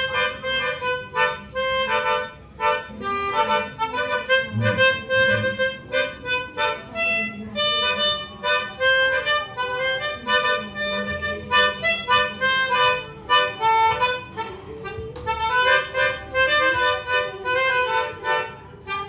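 Melodica (pianika) played as a solo, a quick melody of short, separate reedy notes.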